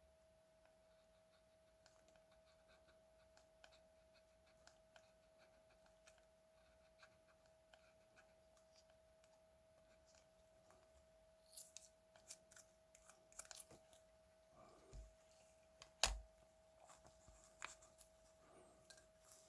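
Faint small clicks and scrapes of hand tools and small parts being handled, growing busier in the second half, with one sharper click about sixteen seconds in. A faint steady tone lies underneath.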